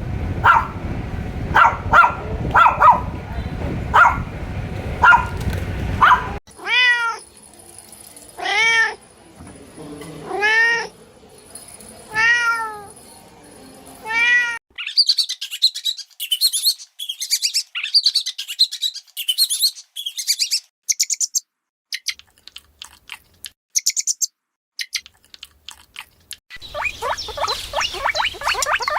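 A run of animal calls: short calls over a noisy background, then a cat meowing five times, each meow rising and falling, then a stretch of rapid high-pitched chirping.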